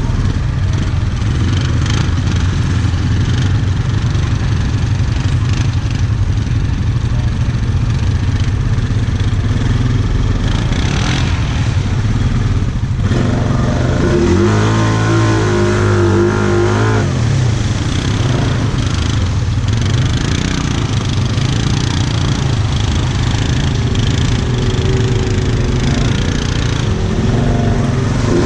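ATV engine running steadily, its pitch shifting up and down for a few seconds about halfway through as the throttle changes.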